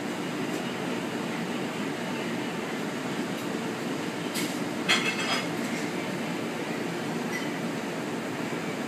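Steady hum of a commercial kitchen's ventilation and equipment, with a short clatter of metal utensils against a plate about halfway through.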